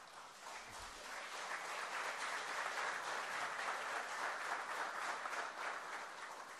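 Audience applauding, swelling over the first couple of seconds and tapering off near the end.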